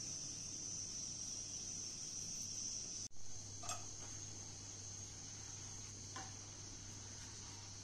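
Crickets chirping steadily with a high-pitched trill, and twice a light clink of a spoon against the cooking pot.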